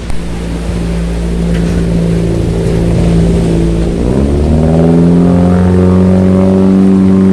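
A motor engine running with a steady hum. About four seconds in its pitch dips, then climbs and holds higher as it gets louder, as when an engine accelerates.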